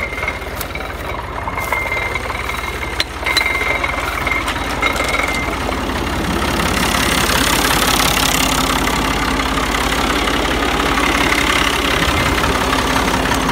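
Tractor engine running steadily while driving a sugarcane crusher. The sound grows louder and noisier about halfway in.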